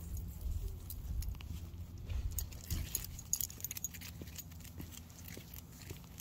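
Footsteps of a person and a leashed dog walking on a concrete sidewalk, with the metal ring and clip of the dog's collar and leash jingling: irregular light clicks and jingles over a low rumble.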